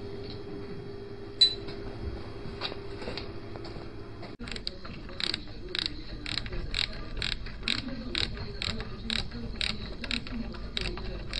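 A steady hum with one sharp click, then a ratchet wrench clicking evenly, about three clicks a second, as it turns a nut on the belt-drive side of a Gilera Runner scooter engine.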